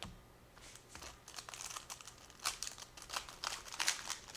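Plastic trading-card packaging and cards crinkling and rustling as they are handled, in irregular crackles with louder bursts about halfway through and near the end.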